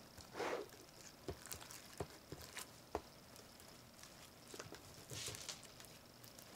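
Sticky red slime being kneaded and pulled by hand in a glass bowl with more activator: faint wet clicks and squishes, with two short, longer squelches about half a second in and near five seconds in. The slime is still sticky after glycerin was added.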